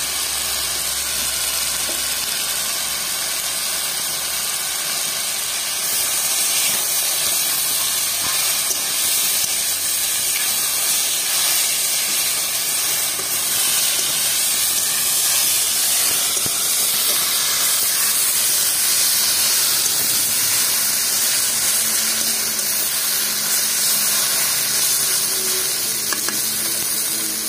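Spinach and brinjal sizzling and steaming in a hot kadhai, a steady hiss that grows louder about six seconds in.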